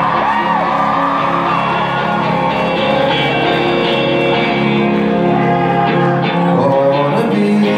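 Live rock band playing an instrumental stretch, electric guitars ringing out over held chords, with some notes sliding in pitch.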